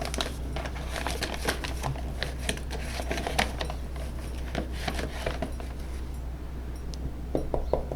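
Quick, irregular clicks and scrapes of flour being scooped with a measuring cup, dense at first and sparser near the end.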